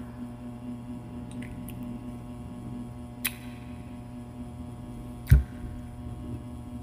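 Steady low hum, with a faint click about three seconds in and a single thump about five seconds in, while a hand reaches to the table of pineapple slices.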